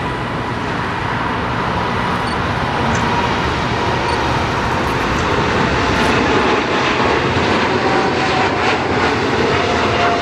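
Cargolux Boeing 747 freighter's four jet engines at takeoff thrust as it lifts off and climbs: a loud, steady rumble that swells slightly after the middle, with a faint whine that drops a little in pitch in the second half.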